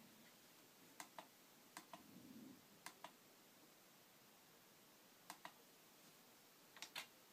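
Faint clicks of push buttons on a lightbar's control box being pressed and released, mostly in close pairs, every second or two over near silence.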